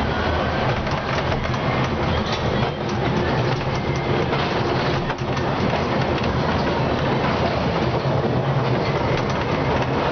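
Miniature ride-on train running along its track: a steady low hum and rumble of the moving cars, with a few faint clicks.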